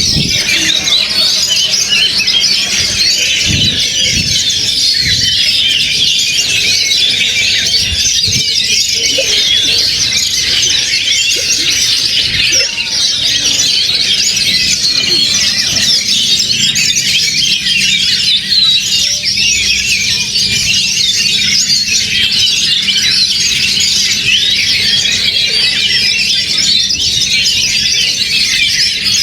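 Caged oriental magpie-robins (kacer) singing loudly and without a break, many birds' songs overlapping into a dense, high chirping chorus.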